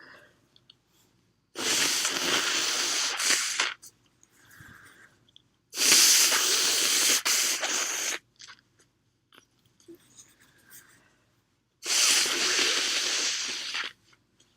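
A person blowing their nose hard into a cloth handkerchief: three long blows of about two seconds each.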